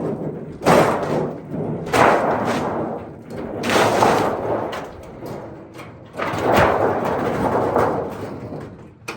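Steel wall panel being pulled off spray foam insulation with vise grips: the sheet metal flexes and rumbles in four pulls, each starting suddenly and fading over about a second.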